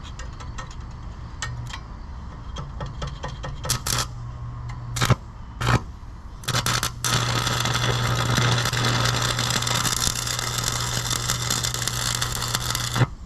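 MIG welder arc tacking steel: a few short crackling bursts, then one continuous crackling weld of about six seconds over the welder's steady hum, cut off suddenly near the end.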